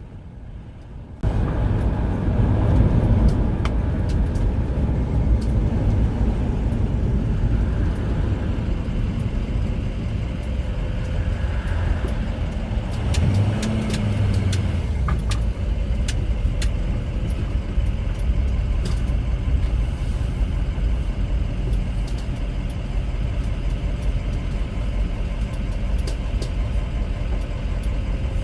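Steady engine and road noise of the converted-ambulance camper under way on the road, cutting in abruptly and loud about a second in.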